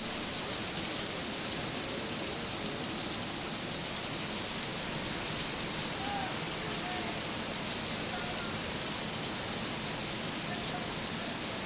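Heavy rain falling steadily, an even, continuous hiss.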